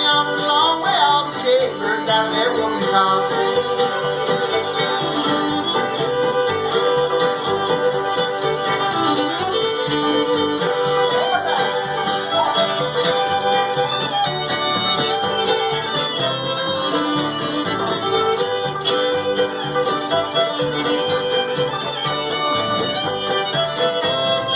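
Bluegrass string band playing an instrumental break of a fiddle tune, with the fiddle leading over banjo and guitar.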